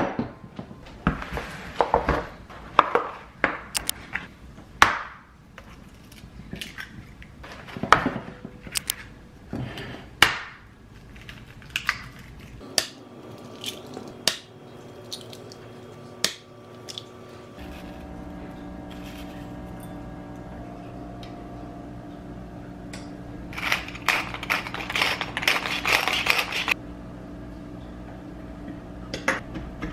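Eggs cracked against a glass mixing bowl and dropped in: a run of sharp taps and clinks of shell and glass. A steady low hum starts about halfway through. Near the end comes a few seconds of rasping, as a pepper mill grinds black pepper over the eggs.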